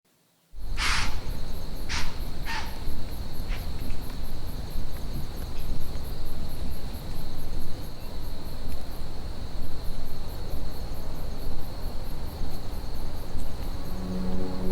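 Crickets chirping: a steady high-pitched trill with fast, even pulses above it, over a loud low rumbling noise. A few sharp cracks come in the first few seconds, and a low droning tone begins near the end.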